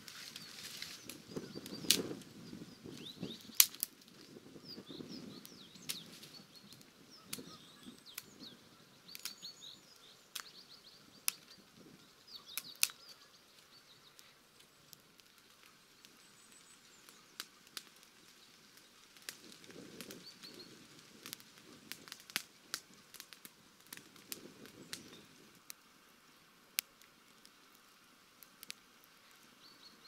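Wood fire burning in a pit dug into the ground, crackling with sharp, irregular pops. There are bursts of rustling from dry leaves being moved and walked on. Faint bird chirps come through during the first half.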